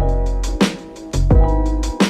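Electronic music with a heavy beat: deep sustained bass notes under sharp drum hits and pitched synth chords.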